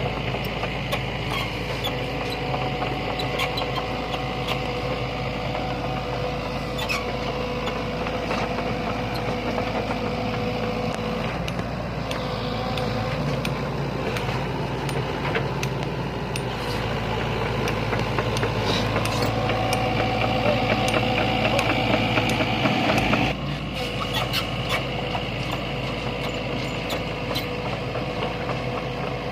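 Sany hydraulic excavator's diesel engine working as it digs, with scattered clicks and knocks. The engine gets louder for several seconds, then drops suddenly about three quarters of the way through.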